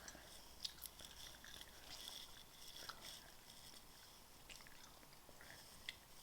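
Mouth chewing a chewy sour apple sweet: faint, irregular wet clicks and smacks, a couple of them sharper.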